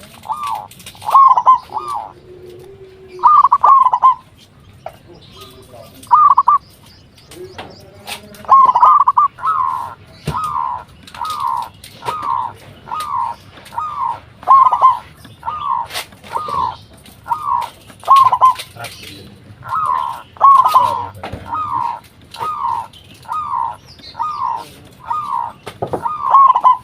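Local zebra dove (perkutut) singing: a long run of short, evenly spaced cooing notes at about one and a half a second. It breaks off for a few seconds about four seconds in, then resumes.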